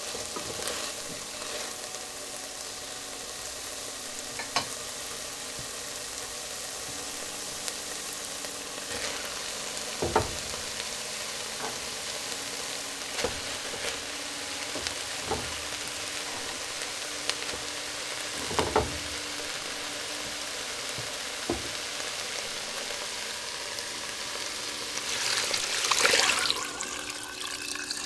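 Chopped onion, bell pepper and tomato sizzling in oil in a pan, with occasional sharp clicks and scrapes of tongs against the pan. Near the end liquid is poured into the pan, a brief louder rushing splash.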